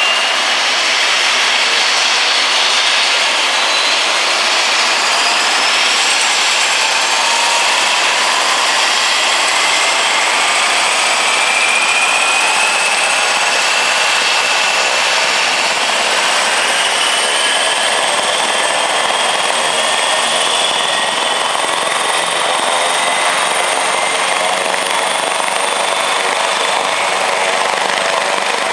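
AgustaWestland AW139 helicopter's twin turboshaft engines and turning main rotor, a loud, steady turbine whine whose tones climb slowly in pitch over about twenty seconds as the engines and rotor spool up before take-off.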